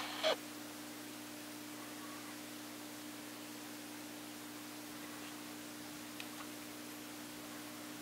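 Steady low hum with hiss in a small room. A brief soft scuffle just after the start is the cats' paws on the carpet as they break off their play, and a couple of faint ticks come about six seconds in.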